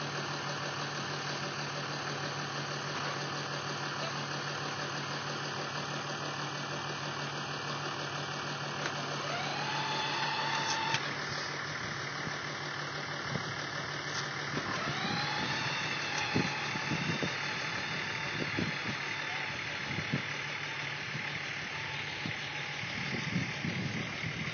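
Electric ride-on toy car, a yellow Camaro replica, running on asphalt. Its motor and gearbox whine rises in pitch twice as it speeds up, about ten and fifteen seconds in, over a steady low hum, with a few soft knocks in the second half.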